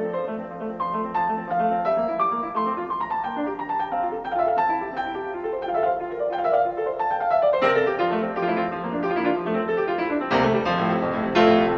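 Piano music: a quick stream of short notes with descending runs, swelling to fuller, louder chords near the end.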